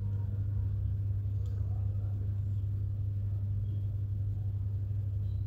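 Steady low electrical-type hum, unchanging throughout, over faint room noise.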